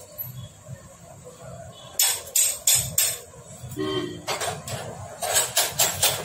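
Sharp metallic clanks of a long steel rod knocked up and down inside a Hero Splendor Plus engine's crankcase during assembly: four hits about two seconds in, then a quick run of clanks near the end.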